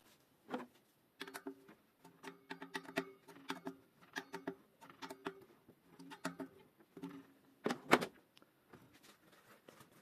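Small metal tool scraping and picking inside a bicycle front hub shell in quick repeated strokes, about two or three a second, while old grease is cleaned out of the hub. A louder clack comes near the end.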